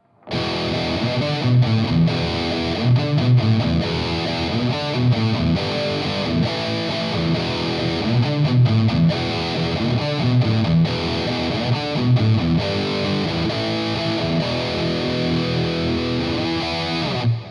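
Electric guitar played through the Playwell Tank-G multi-effects pedal on its preset 9D, a continuous riff that starts just after the beginning and stops short near the end, leaving a brief fading tail.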